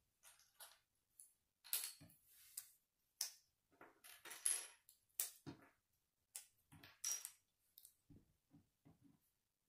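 Small plastic Lego pieces being handled: a string of sharp clicks and short rattling clatters as pieces are picked through and pressed together, with a few soft low knocks near the end.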